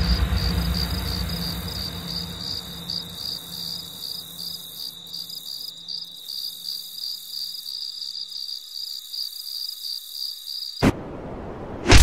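Crickets chirping as a steady, pulsing high trill, over the tail of a deep boom that fades away over the first few seconds. The chirping cuts off suddenly near the end, followed by a short sharp click.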